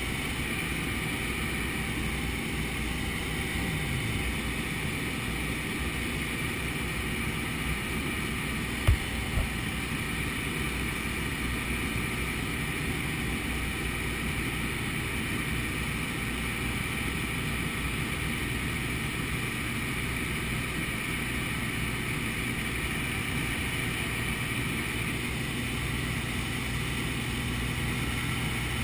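Steady drone of a small jump plane's engine and propeller with rushing air, heard from inside the cabin in flight. Two brief knocks about nine seconds in.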